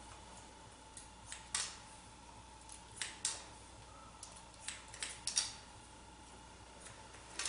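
Haircutting scissors snipping short hair, about eight quick snips in small irregular groups with pauses between, while the top is checked for even length. A faint steady hum sits underneath.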